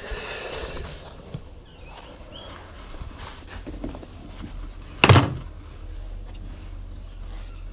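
Damp greensand being scooped from a plastic dustpan into a metal moulding box and pressed down by hand, a rushing scrape at the start, then soft rustling. A single sharp knock about five seconds in.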